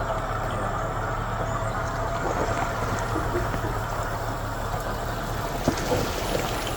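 Steady low mechanical hum with a rumbling noise, as from a running vehicle engine, with one short knock near the end.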